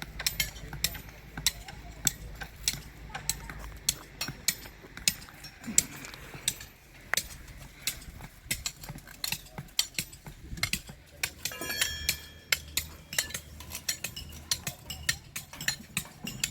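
Many light, irregular metal clicks and clinks from steel reinforcement bars being handled and tied with binding wire.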